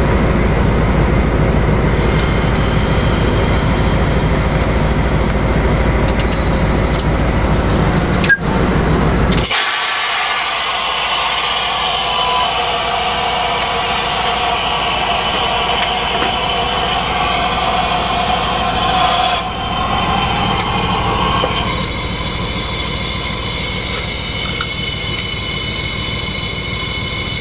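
TEP60 diesel passenger locomotive heard from inside the driver's cab. For about nine seconds there is a deep, heavy engine rumble with a single sharp knock. Then the sound changes abruptly to a steady, hissier running noise, which shifts again about two-thirds of the way through.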